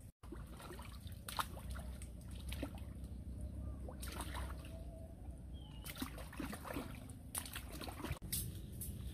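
Hands splashing and sloshing in shallow pond water, in irregular bursts of splashes and trickles.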